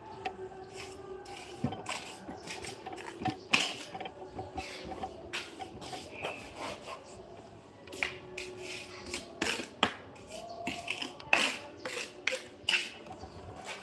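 Irregular taps, clicks and scrapes of hand work with tools and building materials, a few sharper clicks standing out, over a faint steady hum.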